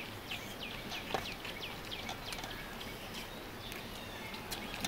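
Small birds chirping: a quick run of short, high, falling chirps, about four or five a second, that thins out after about two seconds, with a few faint clicks.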